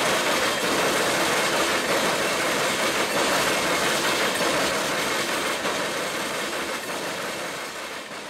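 Freight train's coal cars rolling past: a steady rush of steel wheels on the rails with some clickety-clack, fading gradually over the last few seconds.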